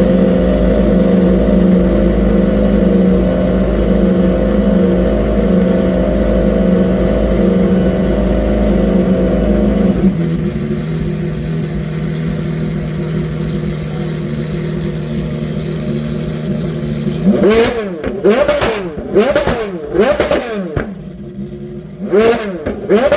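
Gordon Murray T.50's Cosworth V12 running at a steady, slightly raised idle, which drops to a lower idle about ten seconds in. Near the end it is blipped hard several times in quick succession, the pitch shooting up and falling back each time.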